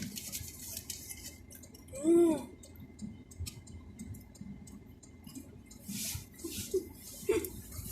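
People eating cheese tarts: soft wet mouth and chewing noises, with one short hummed 'mm' about two seconds in and a few brief hissy rustles near the end.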